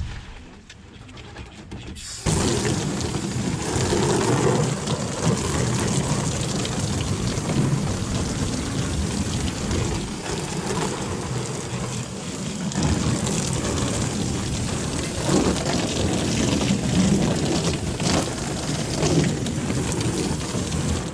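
Water rushing and splashing steadily as a flooded duck pond full of dirty rainwater is emptied, starting suddenly about two seconds in.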